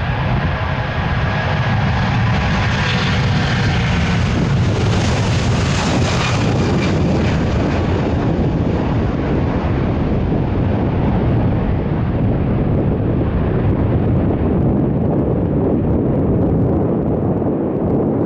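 Jet airliner passing close, a roar with a whine that is loudest about five seconds in, then fades to a low rumble as the plane moves away. Wind buffets the microphone.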